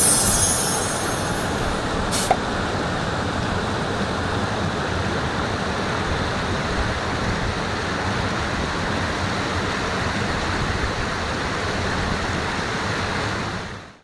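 Steady rush of a large waterfall and the rocky stream cascading below it, fading out near the end. A sharp click sounds about two seconds in.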